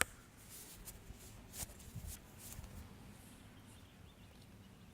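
Light clicks and a few brief rubbing strokes from engine push rods being handled and wiped, with a sharp click at the start.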